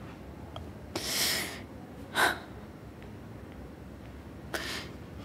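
A person's audible breaths and sniffs from someone upset and near tears: a longer intake of breath about a second in, then two short sniffs.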